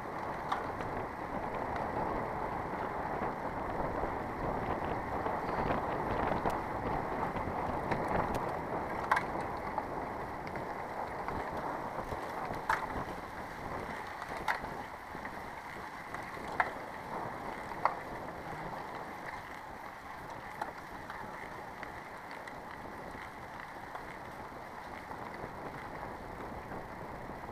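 Bicycle tyres rolling over a dirt and gravel road, a steady muffled rumble with a few sharp clicks scattered through the middle.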